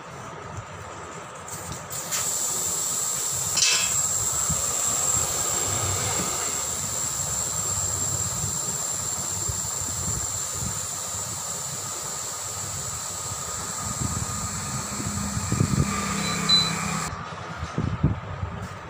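Air hissing steadily through a tyre inner tube's valve, with a thin whistle over the hiss; it starts suddenly about two seconds in and cuts off shortly before the end, followed by a few light knocks.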